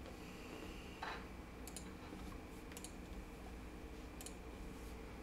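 Faint computer mouse clicks: three quick double clicks spaced about a second apart, over a low steady hum.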